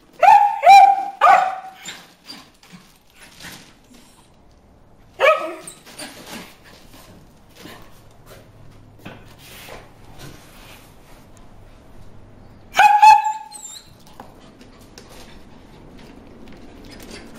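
A dog barking at goldfish in a pond: three quick, sharp barks right at the start, one more about five seconds in, and another near thirteen seconds, with faint scuffling in between.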